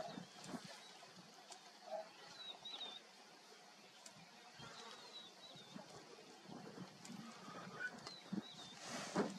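Lions feeding on a buffalo carcass: soft scattered crunching, clicking and tearing sounds. A bird repeats a short high warbling phrase three times, and a short knock comes near the end.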